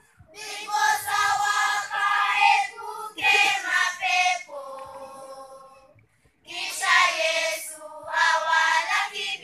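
Children's choir, girls and boys together, singing a song in loud sung phrases, with a short pause for breath about six seconds in.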